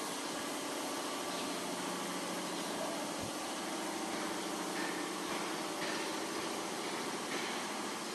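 Truck engine idling steadily.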